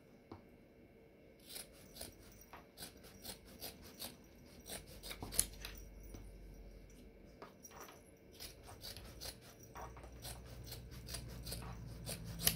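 Scissors cutting through thick, fluffy white batting: a faint, irregular run of short snips, a few a second.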